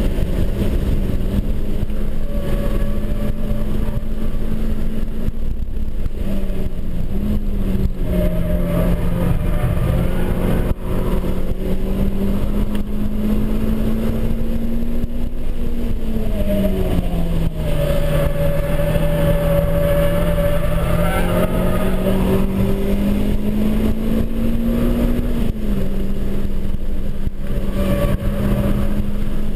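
Renaultsport Clio Cup 200 race car's 2.0-litre four-cylinder engine pulling hard under load, heard from inside the cabin over road and wind noise. The engine note climbs slowly and drops back sharply twice, once near the middle and once a few seconds before the end.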